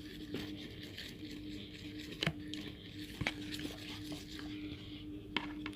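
Homemade slime being worked by hand: soft handling noise with a few sharp clicks, about a second apart, over a steady low hum.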